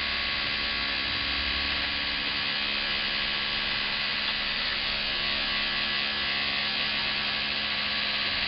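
Homemade centrifuge built from a hard drive, its brushless motor spinning a plexiglass rotor loaded with sample tubes at a steady speed below its maximum. It makes a steady electric whine and hum that holds one pitch.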